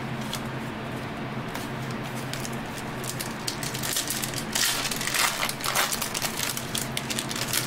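Foil wrapper of an Upper Deck Goodwin Champions trading-card pack being torn open and crinkled by hand, crackling from about halfway through. A steady low electrical hum runs underneath.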